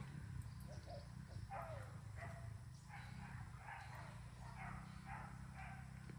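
Dog barking in the distance: a faint series of short barks, a little under one a second.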